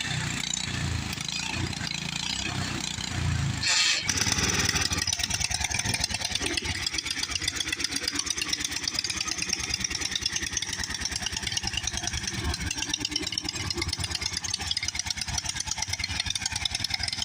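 1967 Jacobsen Chief garden tractor's engine running, uneven for the first few seconds. After a short loud burst about four seconds in, it settles into a rapid, even putter.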